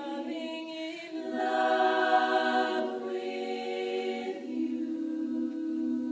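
An a cappella vocal group singing sustained chords with no instruments. The harmony shifts twice and settles on a long held chord.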